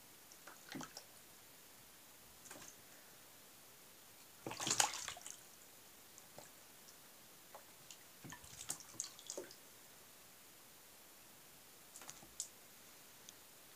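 A cat's paw dabbing into water in a plastic tub, making small splashes and drips in several short bouts. The loudest splash comes about four and a half seconds in, with a quick cluster around eight to nine seconds.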